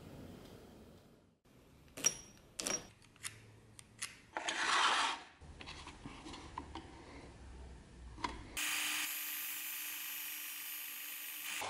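A few sharp metallic clicks and taps, a short scraping burst, then for the last three seconds an electric disc sander running with a small part pressed against its abrasive disc: a steady grinding hiss over a low motor hum.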